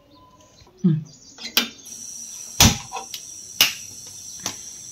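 Pressure cooker being closed and set on the stove: a few sharp metallic knocks and clicks about a second apart, the loudest a little past halfway, with a steady high-pitched tone and hiss from about two seconds in.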